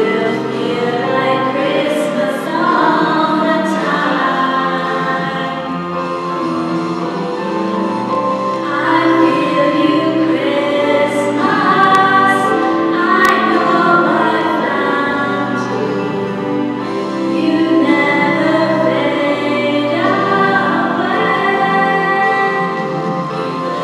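A choir of women's voices singing together, with long sustained notes and several voices sounding at once.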